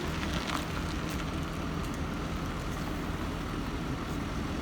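A car driving, heard from inside the cabin: a steady low engine and road rumble with a few faint clicks and rattles.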